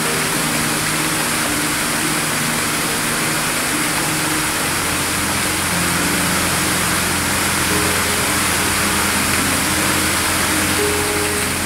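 Background music: slow, held chords that change every second or so, over a steady hiss.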